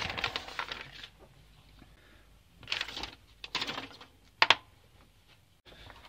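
Paper instruction sheet crinkling and rustling as it is handled, in short bouts, with a single sharp click about four and a half seconds in.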